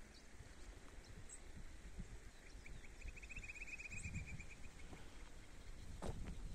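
Faint outdoor ambience of low wind noise on the microphone, with a short, rapid bird trill a little before the middle and a few faint high chirps.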